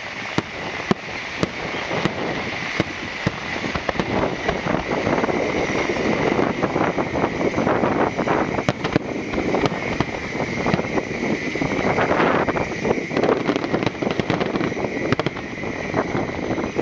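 Fireworks display going off: many sharp bangs and crackles close together over a continuous noisy wash, growing denser from about four seconds in.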